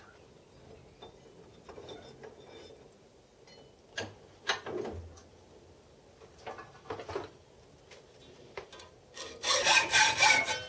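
Hand hacksaw cutting parts out of a metal casting: a few scattered short scraping strokes, then a loud, quick run of strokes near the end.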